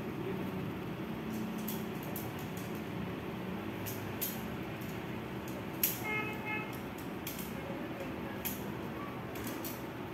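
Light metal clicks and clinks of shock-corded aluminium tent pole sections being unfolded and handled, over a steady background rumble. A short horn-like toot sounds about six seconds in.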